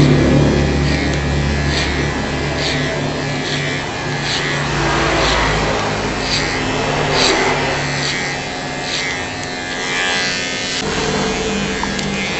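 Cordless electric hair clipper with a guard, running steadily as it cuts through the hair on top of the head. A short scratchy snip sounds with each pass, about once or twice a second, as the clipper textures the hair tips.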